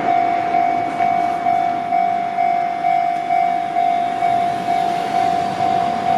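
Japanese railway level-crossing warning alarm ringing its repeated electronic bell tone, about two strikes a second, as the crossing signal warns of an approaching train.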